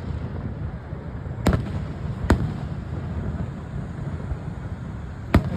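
Fireworks bursting overhead: three sharp bangs, one about a second and a half in, another a moment later, and a third near the end, over a steady low rumble.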